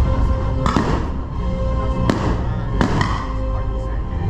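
Fireworks shells bursting in the sky, about five sharp bangs at uneven intervals of roughly a second, over music that plays throughout.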